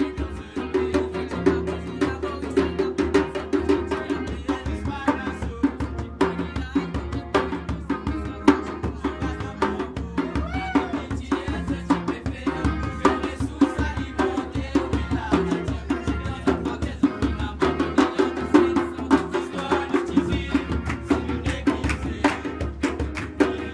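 A group of young male voices singing a sega song live, backed by an electric guitar and hand-beaten frame drums keeping a steady beat.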